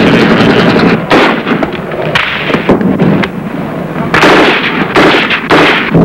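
Gunfire: a series of loud shots and short bursts, about seven in all, starting about a second in.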